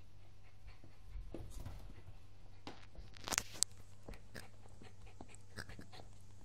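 A small Maltese-poodle cross chewing and mouthing a pink toy pig. Scattered short clicks and crunches, with a louder cluster of them about three and a half seconds in.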